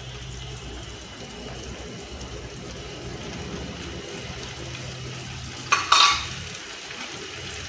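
Poppy-seed paste being scraped from a small steel bowl into a steel kadai over a low steady hum and a faint sizzle of masala in the pan. About six seconds in come two sharp metal clanks, the steel bowl knocking against the kadai.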